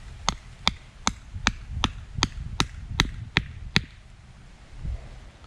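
Short-handled steel sledgehammer striking a wooden stake, driving it into the ground: about ten even blows, roughly two and a half a second, stopping about four seconds in.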